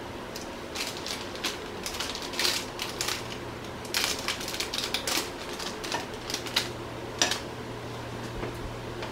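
Irregular crinkling and clicking of a plastic food bag being handled by foot over a plate, over a steady low hum.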